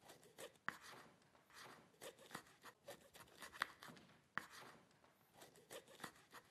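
Knife cutting on a cutting board: faint, irregular scraping and light taps, with a few sharper knocks of the blade on the board.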